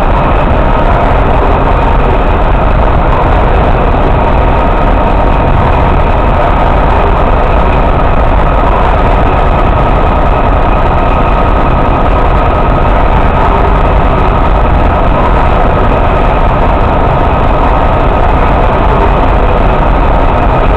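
MÁV M44-class diesel shunting locomotive's engine running steadily and loudly: a heavy low rumble with a steady high whine over it.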